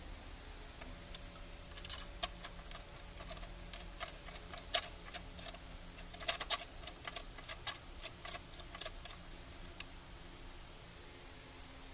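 Light, irregular metallic clicks and ticks as a bolt is fitted by hand into the water pump housing of an Audi 2.0 TFSI engine.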